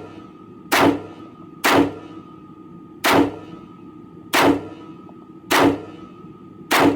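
Six 5.56 rifle shots from a Black Rain Ordnance Fallout 15 AR-15, fired one at a time about a second apart, each with a short ringing echo.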